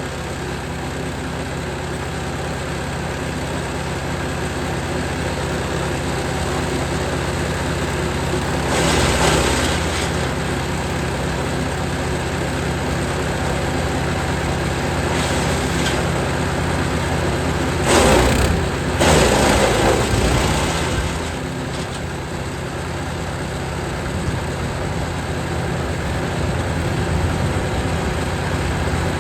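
Jansen 1500e GTS wood chipper running steadily, with louder crunching bursts as branches are fed through: a short one about a third of the way in, and the loudest, longer stretch a little past the middle.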